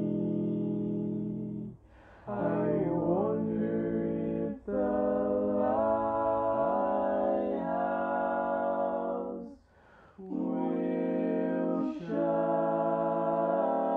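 Four-part a cappella barbershop harmony sung by one man's voice multitracked across all four parts, holding sustained chords that shift between notes. The chords break off briefly about two seconds in and again near ten seconds.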